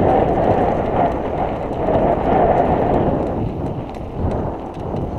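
Wind buffeting the microphone of a camera on a moving mountain bike, over the rumble of its tyres rolling on rough asphalt, with scattered small clicks; it eases off a little after about three seconds.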